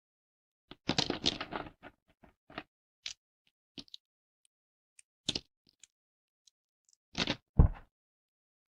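Dry soap plates snapping and crumbling: a quick run of crisp crunchy cracks about a second in, a few single snaps in the middle, and a louder crunch near the end.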